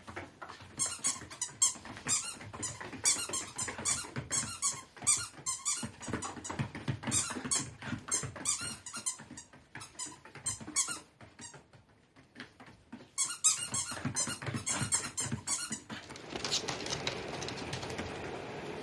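Dog's rubber squeaky toy squeaking in quick runs of several squeaks a second, with short breaks about six and twelve seconds in. A steady hiss takes over near the end.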